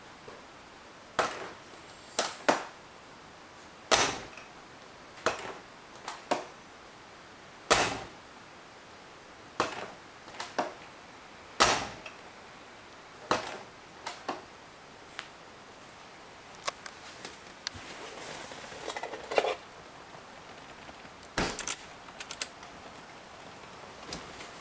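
Door and window mechanism of an Alfa Romeo Spider (916) being worked: a string of sharp clicks and knocks, one every second or two. There is a short rougher stretch about three-quarters of the way through and a quick cluster of clicks near the end.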